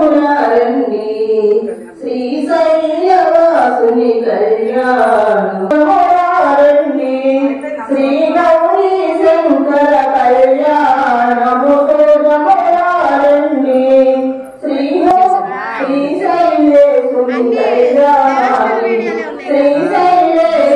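Women's voices singing a Telugu devotional pavalimpu (lullaby) song together, in long sung phrases with two brief breaks: about two seconds in and near the middle-late part.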